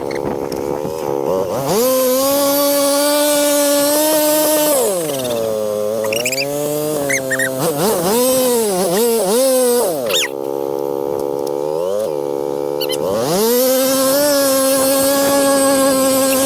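ATV engine revving hard: it climbs and holds high revs, drops back, blips up and down quickly several times, then climbs and holds high again.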